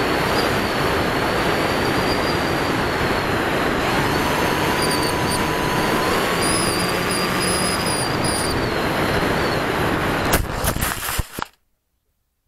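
C1 Chaser FPV plane's electric motor and propeller, heard from the onboard camera in flight: a steady rush of prop wash and wind with a wavering high whine. About ten seconds in come a few sharp knocks as it comes down into the grass, then the sound cuts off abruptly.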